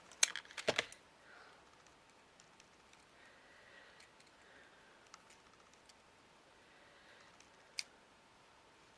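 A quick run of small clicks and knocks from craft materials being handled on a work table, then faint handling noise with one sharp tick near the end.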